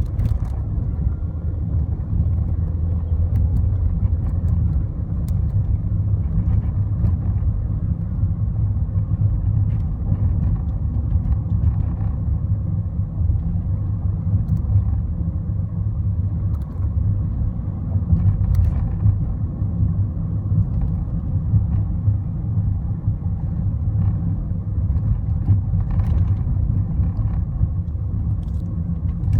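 2012 Volkswagen Jetta on the move: a steady low road and running rumble with scattered light ticks.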